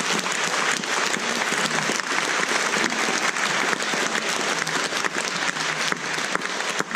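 Audience applauding, a dense steady clapping that begins to thin out near the end.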